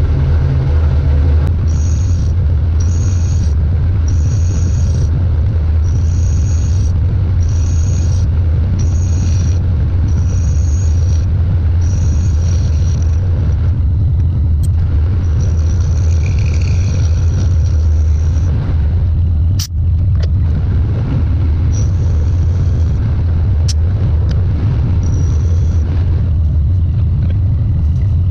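Metal lathe running while it turns an aluminum tube, in footage sped up eightfold. A steady low hum runs underneath, and a high-pitched cutting hiss comes and goes about once a second, with a few sharp clicks later on.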